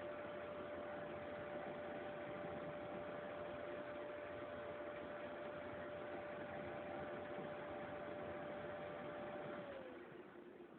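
A steady, high-pitched whine over a hiss, the noise complained of on a C8002. Near the end the whine slides down in pitch and stops, and the hiss fades with it.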